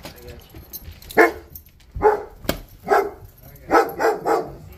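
German Shepherd-type dog barking, a run of about six short, loud barks starting about a second in.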